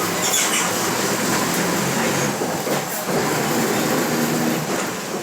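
Mercedes-Benz OF 1721 BlueTec 5 bus under way, its rear differential growling over a steady rumble of ride noise.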